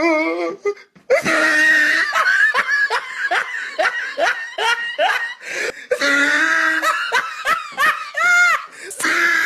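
A person laughing hard in quick repeated bursts, several a second, with a short break about a second in.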